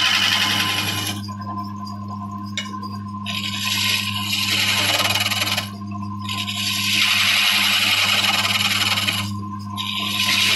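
Electric wood lathe motor humming steadily while a chisel cuts the spinning wood in repeated passes. Each pass is a hissing scrape of one to three seconds, with short pauses between.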